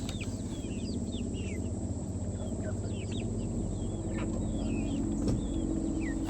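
A portable generator's engine running steadily, with birds chirping repeatedly over it.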